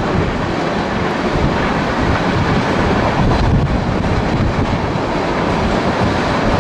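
Freight train of covered hopper cars rolling past at a grade crossing: the steel wheels make a steady rumble on the rails, with scattered clacks over the rail joints.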